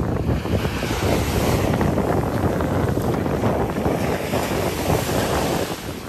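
Surf washing up onto a sandy beach, with wind buffeting the microphone in a steady low rumble.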